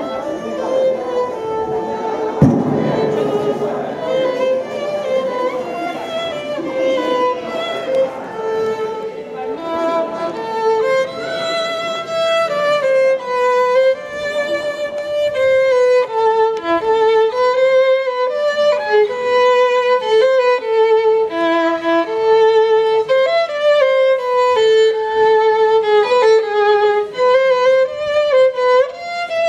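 Solo violin playing an aurresku dance tune, a single melody line of many short, quick notes. A single sharp knock sounds about two seconds in.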